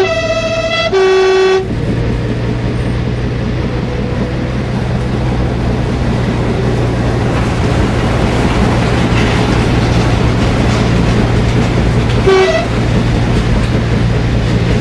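Horn of a sound-equipped model railway railcar, tooting twice at the start and once briefly about twelve seconds in, over a steady diesel-engine hum with rail running noise.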